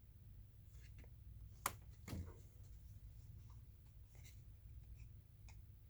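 Faint handling of trading cards and card packaging: light paper rustling and small ticks, with one sharp click a little under two seconds in, over a low steady room hum.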